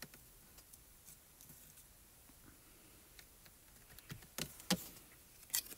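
Quiet room tone, then a few light taps and clicks near the end as hands handle stamping pieces on a stamp positioning platform.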